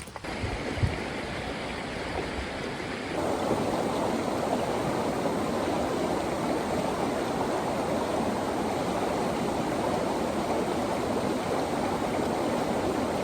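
Steady rushing of running water, like a stream; about three seconds in it steps up to a louder, fuller rush and holds steady.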